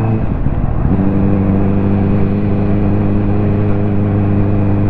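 Ducati motorcycle engine running under way. Its note breaks and dips briefly during the first second, then runs on at a steady pitch.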